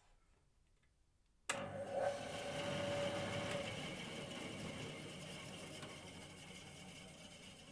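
Bandsaw switched on about a second and a half in, its motor and blade starting suddenly and then running steadily, the level slowly easing off.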